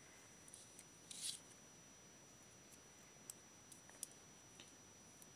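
Near silence, with faint handling of small plastic toys: a brief soft scrape about a second in, then a few light clicks.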